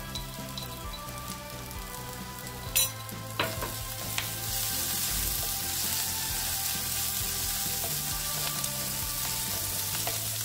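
Chopped onions and ginger-garlic paste sizzling in hot oil in a metal frying pan, stirred with a spatula. There are two sharp clicks about three seconds in, and the sizzle grows louder from about halfway.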